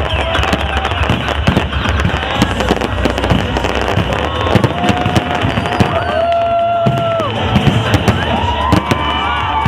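Fireworks display going off: a dense run of crackling bangs. A few long, steady whistles sound in the middle and again near the end.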